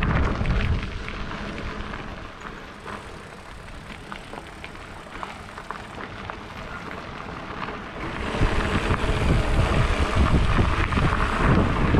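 Wind and riding noise on a bicycle-mounted camera's microphone as the bike rolls over a dirt trail, with small clicks and crunches from the tyres. About eight seconds in it turns louder into a gusty wind rumble.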